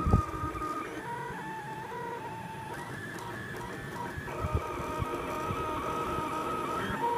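Kossel delta 3D printer's stepper motors whining as it prints, in steady tones that jump to a new pitch every second or so as the moves change. A low thump sounds just after the start, and a smaller one about four and a half seconds in.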